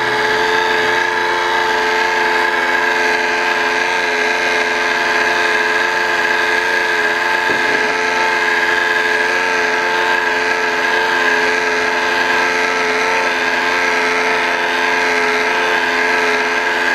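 Handheld electric stick blender running with a steady hum, its steel shaft submerged in a bucket of cold-process soap batter. It is mixing freshly added essential oil into the thickening batter, which is nearly at trace.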